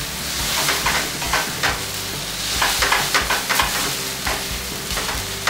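Spaghetti sizzling in oil in a hot stainless steel frying pan as it is stirred and tossed, with a metal spaghetti server and a wooden spoon knocking and scraping against the pan many times.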